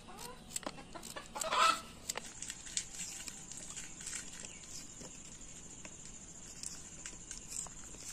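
Chickens clucking, with one louder call about a second and a half in, over light clicks of a small knife chopping vegetables by hand and a steady high-pitched buzz.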